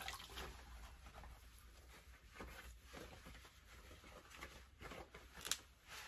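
Faint handling sounds of a damp cloth wiping the top of a washing machine, with a light click about five and a half seconds in.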